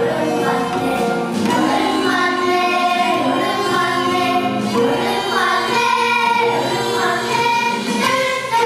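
A group of young girls singing a Korean traditional (gugak) song together in unison, with notes held for a second or more.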